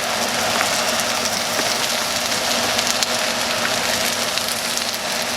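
Chorizo filling with spinach and mushrooms sizzling in a frying pan: a steady hiss full of small crackles, over a faint low hum.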